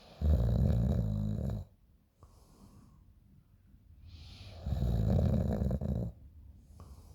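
A person snoring in sleep: two loud, low snores about four seconds apart, each lasting about a second and a half, with softer breathing between them.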